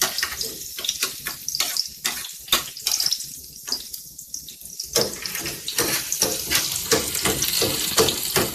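Chopped onion sizzling and crackling in hot oil in a frying pan, with clicks of a metal spoon against the plate and pan. The sizzling grows louder and denser about five seconds in, as the pan is stirred.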